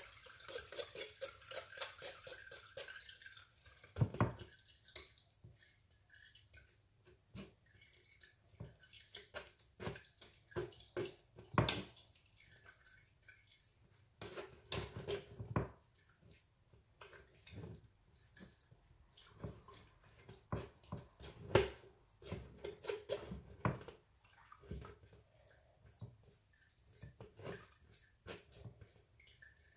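Blended carrot juice trickling and dripping through a strainer into a plastic jug. A quick patter of drops for the first few seconds thins to scattered drips, with a few sharper knocks from handling.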